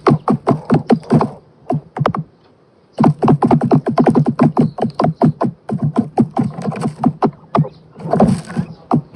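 Electronic background music with a fast, even beat and a deep bass line, dropping out briefly between about one and a half and three seconds in.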